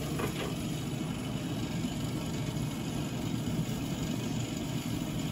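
Traeger pellet grill running with its lid open, its draft fan giving a steady low hum.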